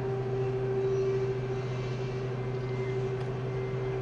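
Steady low mechanical hum with an unchanging pitch, like a large engine or generator running.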